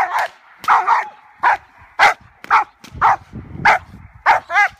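German Shepherd barking repeatedly, about two barks a second, in high excitement while held back by its harness from a bite tug. Near the end one bark rises into a higher, whining yelp.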